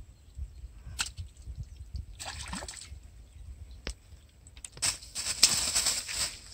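A small hooked fish splashing in a shallow, weedy water hole, then a louder flurry of thrashing and grass rustling near the end as it is pulled onto the bank and grabbed by hand.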